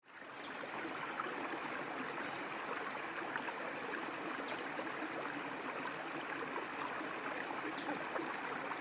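Shallow rocky stream running over small cascades, a steady rush of water that fades in at the very start.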